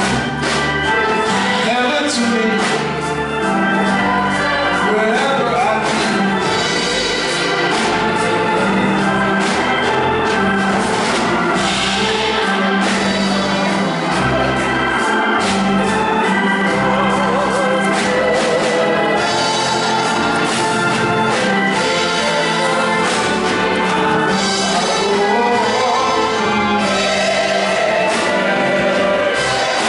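Church choir singing a hymn with organ accompaniment.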